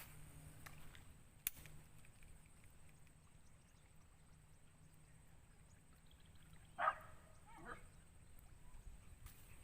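A dog barks twice, a short bark about seven seconds in and a fainter one just after, over a quiet outdoor background. A single sharp click comes about a second and a half in.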